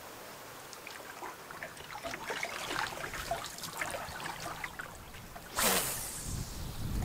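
Water trickling and lapping in small patters around a canoe as it glides along the shore. About five and a half seconds in comes one louder whoosh falling in pitch, then a low rumble of wind on the microphone.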